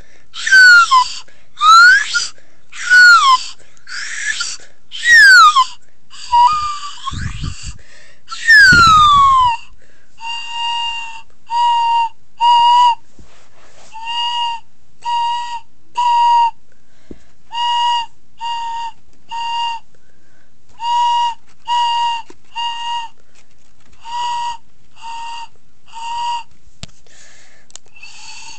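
A child's high-pitched vocal imitation of a fire alarm. It starts with siren-like whoops sweeping up and down, with a dull low rumble under the last of them. Then it turns into steady beeps in groups of three, repeated about every three seconds.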